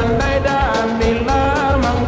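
Background music: a song with a gliding melody line over a steady beat.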